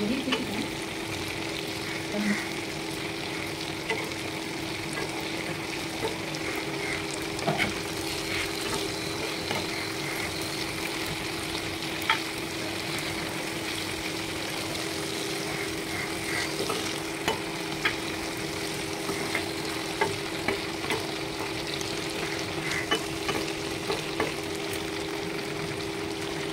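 Snakehead (viral) fish steaks shallow-frying in oil on a flat tawa: a steady sizzle, with a scatter of short taps and scrapes from a spatula as the pieces are moved and turned. A steady low hum runs underneath.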